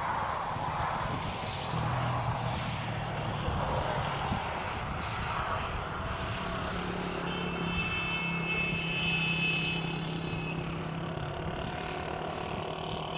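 Aircraft engine droning steadily over a rough, continuous rumble, with a higher whine joining in about halfway through.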